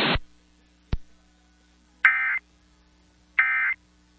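Emergency Alert System end-of-message (NNNN) data bursts: two short, identical bursts of rapidly switching digital tones about 1.4 seconds apart, the first about two seconds in. Before them the hissy broadcast audio cuts off and a single click sounds about a second in.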